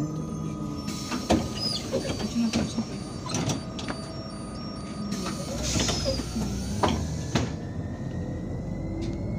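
Irisbus Citelis 12M city bus heard from inside while driving: a steady low hum from the Iveco Cursor 8 engine and Voith automatic gearbox, with a thin whine that sinks slightly at first and climbs slowly near the end. Over it, a run of sharp clicks, knocks and rattles from the bus interior during the first seven seconds or so.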